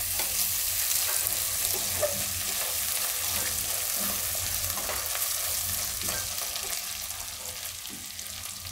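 Chopped onion with ginger-chilli paste and spices sizzling in hot oil in a wok while a silicone spatula stirs and scrapes through them. The sizzle gets a little quieter in the last couple of seconds.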